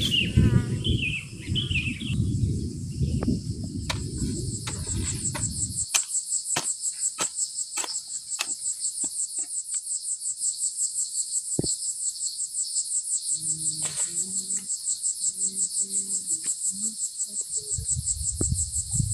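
Insects shrilling in a fast, even pulse of about four or five beats a second, which sets in about four seconds in and carries on. A low rumbling noise underneath stops about six seconds in, and a few short low calls sound about two-thirds of the way through.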